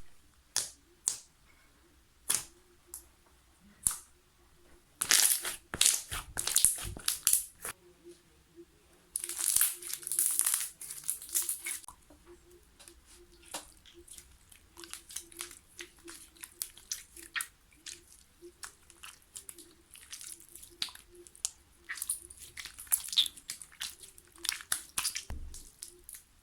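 Slime being squeezed and pressed by hand, giving a run of sharp clicks, crackles and popping air pockets, with denser, louder bursts about five and nine seconds in.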